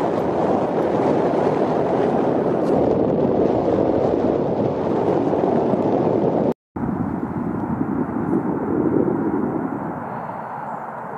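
Wind blowing across the microphone: a steady rushing noise that breaks off for a moment about six and a half seconds in and comes back softer.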